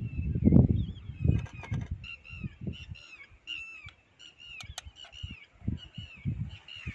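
A bird calling over and over, a short call falling in pitch, repeated two to three times a second from about two seconds in. Low rumbling fills the first second and a half, and a few sharp clicks sound along the way.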